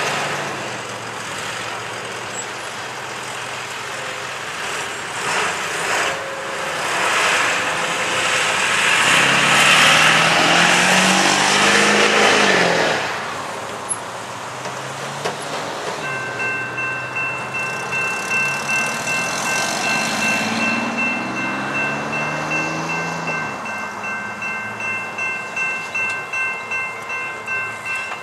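Road vehicles driving over a railroad grade crossing, the loudest going by about ten seconds in with its engine note falling. About halfway through, the crossing's warning bell starts ringing steadily at about two strikes a second, the signal that a train is approaching.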